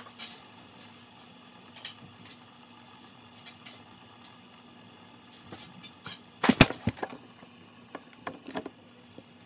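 Scattered knocks and taps on a tabletop, with a cluster of loud thumps about six and a half seconds in and a few lighter knocks shortly after, over a faint steady hum.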